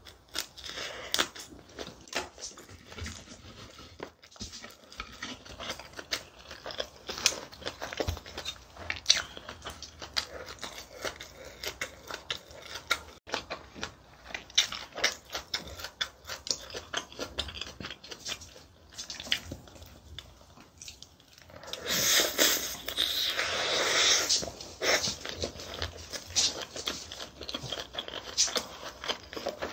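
A person eating: chewing and biting through pork and rice with wet mouth sounds and many short sharp clicks. About three-quarters of the way in, a louder, denser stretch of noise lasts about two seconds.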